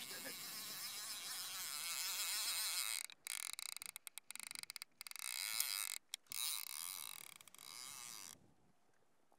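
Fly reel buzzing as fly line is pulled off it by hand. It starts with a long steady pull, then a run of short stuttering tugs, then another steady pull, and stops about eight seconds in.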